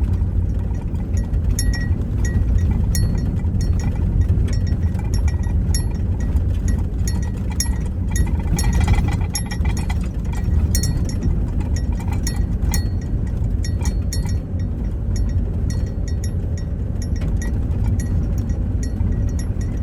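Vehicle driving on a rough dirt or gravel road, heard from inside: a steady low road rumble with frequent small clicks and rattles throughout.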